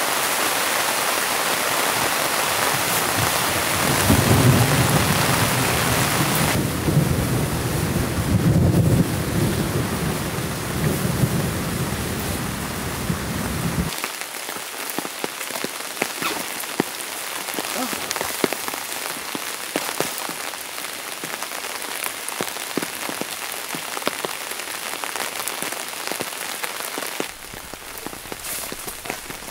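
Heavy rain falling on a tent's fabric and clear vinyl windows, heard from inside, with thunder rumbling low for several seconds in the first half. After about halfway the rumble stops and the rain is a lighter patter of separate drops.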